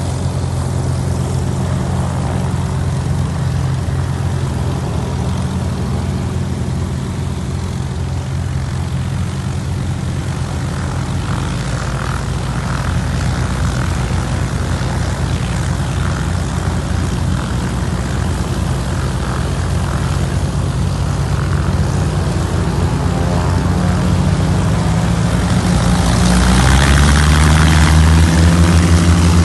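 Piston engines of several small single-engine propeller airplanes running steadily on a runway. About 26 s in, one grows louder and its pitch shifts as it throttles up for takeoff.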